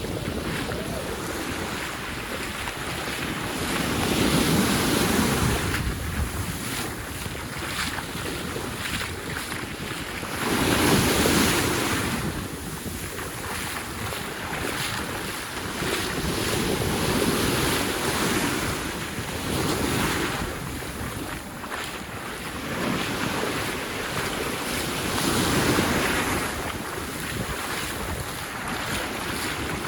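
Sea waves washing onto a sandy beach, swelling and ebbing in a slow rhythm of about one wave every six or seven seconds, with wind rumbling on the microphone.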